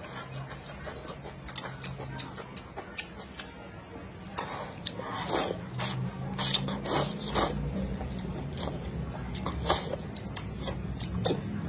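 Slurping and chewing thick rice noodles in spicy soup: a run of sharp slurps and mouth clicks, loudest and closest together from about halfway through, with one more strong slurp near the end. A low steady hum underneath.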